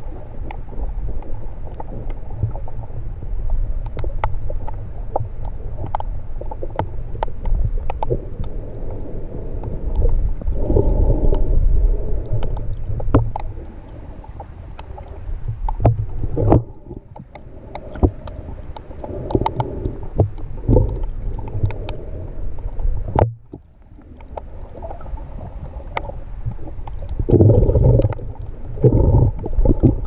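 Muffled underwater sound through a GoPro's waterproof housing: a low rumbling wash of moving water that swells and fades, with scattered small clicks and crackles.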